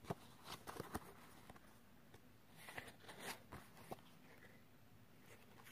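Faint rustling and light taps of paper cards being handled in the hands, a handful of brief soft clicks scattered through, a few close together near the middle.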